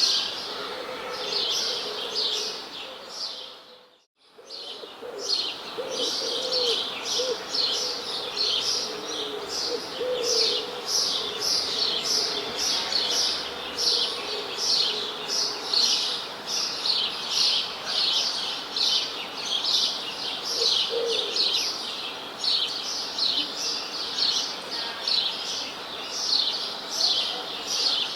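A chorus of small birds chirping: quick, high, falling chirps repeating densely, with a few lower calls mixed in. The sound fades out briefly and back in about four seconds in.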